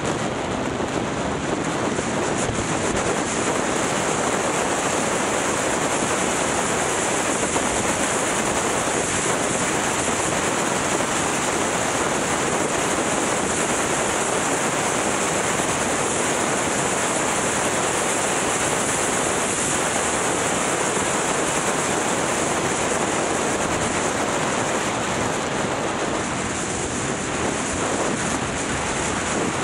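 Wind rushing over the microphone of a camera riding on a moving motorcycle, mixed with road noise: a steady, loud rush that eases slightly for a moment near the end.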